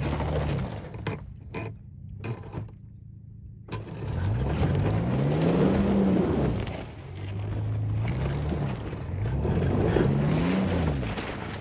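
Toyota Tacoma pickup's engine revving under load as it pushes through deep snow and slush, its pitch climbing and falling twice, with the tyres churning through the snow. It is quieter for a few seconds near the start before the revs rise again.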